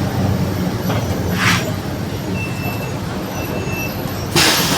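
Mercedes-Benz OF 1721 city bus running with a steady low drivetrain drone, its rear differential growling. A short hiss comes about a second and a half in, and a louder burst of hiss near the end.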